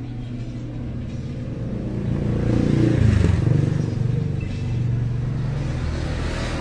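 Steady low engine hum of a motor vehicle, growing louder about two to three seconds in, then easing back to a steady level.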